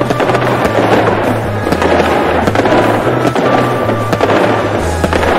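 Fireworks going off: dense crackling with many sharp pops, over background music with a low bass line.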